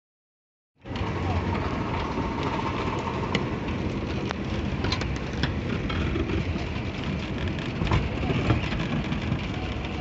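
Engine of the concrete-pouring machinery running steadily, with scattered sharp metallic clicks and knocks. It cuts in abruptly just under a second in.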